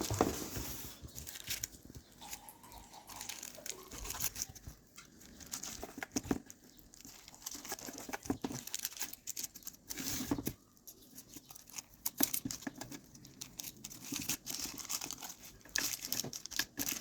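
Hands working soft buttered msemen dough: irregular crinkling, rubbing and light tapping as the dough is folded, tucked and pressed.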